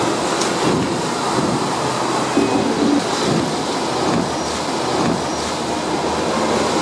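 Hong Kong double-decker electric tram running along its street rails: a steady rumble with the clatter and rattle of the wheels and car body over the track.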